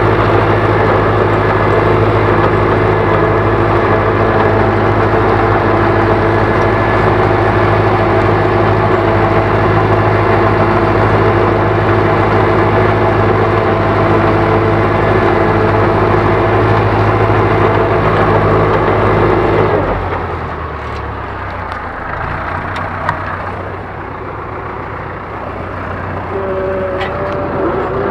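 Ursus tractor's diesel engine running steadily under ploughing load, heard from inside the cab. About two-thirds of the way through the sound suddenly drops and changes to a quieter, smoother running.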